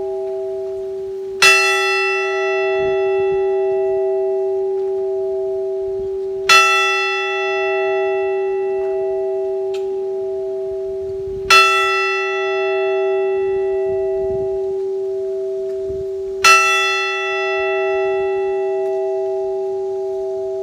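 A large tower bell tolling, struck four times about five seconds apart. Each stroke rings out bright and then fades into a long hum that carries on into the next stroke.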